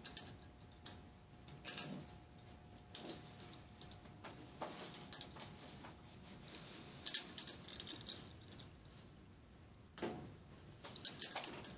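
Hands moving over a cotton shirt on a child's back: scattered rustles and light clicks with clinking of a metal watch band. About ten seconds in, dull thumps as a fist strikes the other hand laid over the flank, percussion to check for kidney tenderness.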